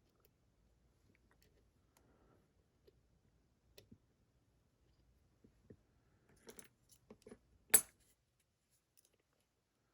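Lock-picking tools working in a pin-tumbler lock: scattered faint metallic clicks and taps of the pick against the pins, growing busier past the middle, with one much louder sharp click about three quarters of the way through.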